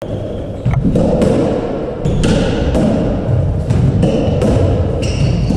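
Squash rally: the ball cracking off rackets and the court walls in sharp knocks at irregular intervals, with players' shoes moving on the wooden floor, echoing in the enclosed court.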